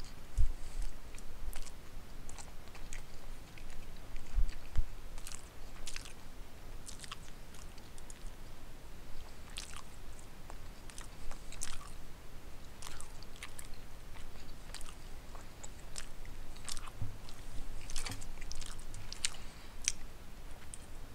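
A person chewing food close to the microphone, with irregular small mouth clicks, eating pot roast with carrots and potatoes. Two dull thumps stand out, one just after the start and one about four and a half seconds in.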